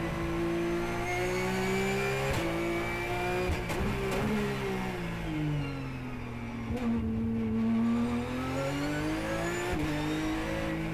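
Porsche Carrera Cup race car's flat-six engine heard from inside the car: it lifts and downshifts twice a few seconds in, its pitch drops low through a slow corner in second gear, then rises under acceleration, with an upshift to third near the end.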